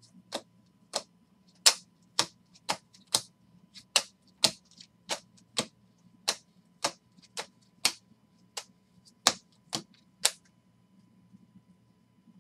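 Baseball trading cards being thumbed one at a time off a stack held in the hands, each card giving a sharp snap or click. The clicks come about twice a second and stop near the end.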